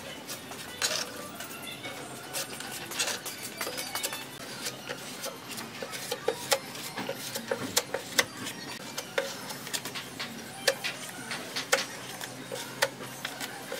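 Flat filler spreader scraping body filler across a car body panel: short dry scrapes and many sharp, irregular clicks as the spreader edge drags over and lifts off the panel.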